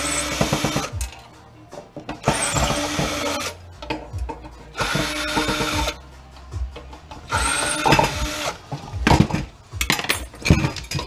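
Cordless drill/driver backing screws out of a plastic housing on a sheet-metal chassis, running in four short bursts of about a second each. Near the end come a run of sharp clicks and knocks as loose parts are handled.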